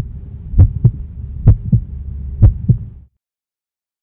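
Heartbeat sound effect: three double lub-dub thumps, about one a second, over a low steady hum, stopping abruptly about three seconds in.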